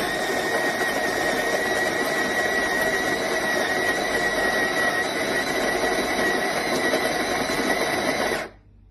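AMZCHEF burr coffee grinder's motor running steadily with a high whine, then stopping abruptly near the end.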